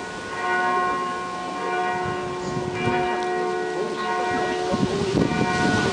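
Church bells ringing, their tones hanging on and overlapping, with fresh strikes twice. People talking near the end.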